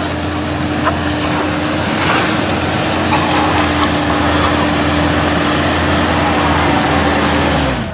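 Toyota Hilux pickup's engine pulling at steady revs while the truck drives through deep red mud, over a loud rushing hiss. The engine note drops just before the sound cuts off.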